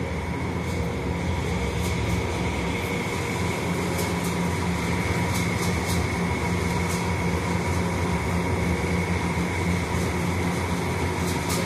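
Steady mechanical hum with a constant higher whine over it, like machinery running in an enclosed hall, with a few faint clicks scattered through it.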